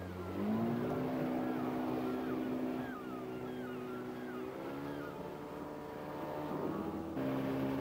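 Small fishing boat's outboard motor running under way, rising in pitch about half a second in as it picks up speed and shifting again around the middle. The sound changes suddenly near the end.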